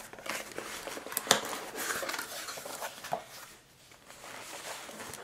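Cardboard shipping box being opened by hand: flaps scraping and crackling, with a few sharp snaps, then quieter rustling of the packaging in the second half.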